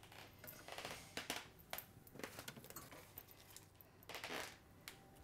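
Faint rustling and soft taps as loose carrot peelings are scooped by hand off a wooden chopping board, with a slightly louder brush of peelings about four seconds in.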